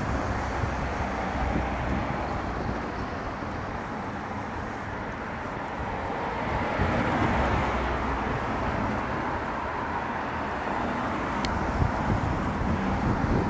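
Road traffic on a town street: cars passing on a wet road, with a steady rumble of engines and tyre noise that swells as vehicles go by, about halfway through and again near the end.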